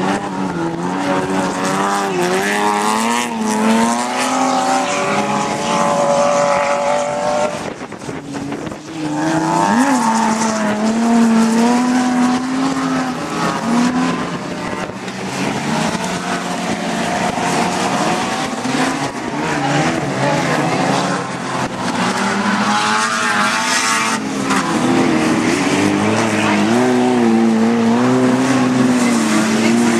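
Engines of several touring cars over 1600 cc racing on a dirt autocross track, revving hard with the pitch climbing and dropping again and again as the drivers shift and lift, with a short lull about eight seconds in.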